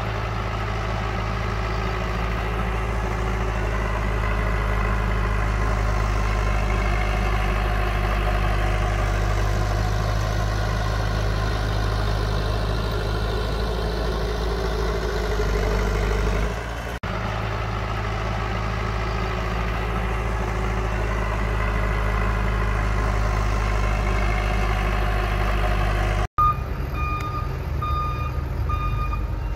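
Heavy diesel engine of earthmoving machinery running steadily, broken by two abrupt cuts. Near the end a reversing alarm beeps repeatedly at a steady pitch over the engine.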